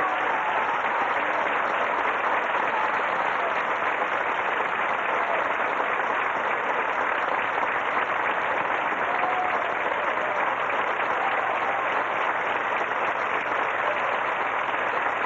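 Theatre audience applauding steadily, a long ovation for a ballet solo. A couple of faint calls rise over the clapping near the middle.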